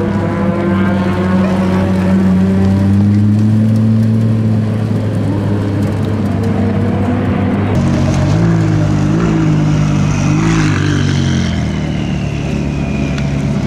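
High-performance car engine running at a steady pitch; about eight seconds in, it is revved, its pitch rising and falling several times in quick succession before settling again.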